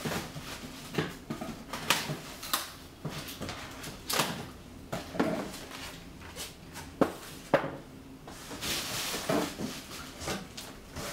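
A polystyrene packing insert and a cardboard box being handled: a string of separate knocks, scrapes and squeaks as the foam insert is pulled out of the box, then a rustle of plastic wrapping about three-quarters of the way in.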